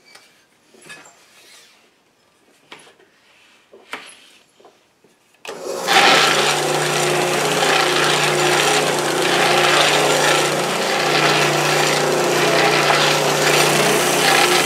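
Drill press with a belt-driven oscillating drum sander running: a steady hum under a broad rushing noise that starts suddenly about five seconds in, after a quiet stretch with a few faint clicks. Wood is being sanded on the drum near the end.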